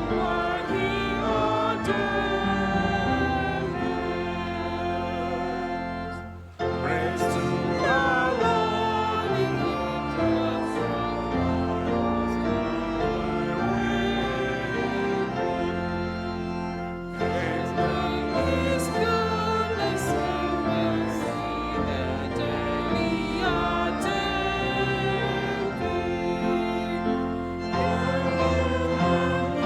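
A hymn sung by a group of voices with instrumental accompaniment, with a brief break about six seconds in before the singing resumes.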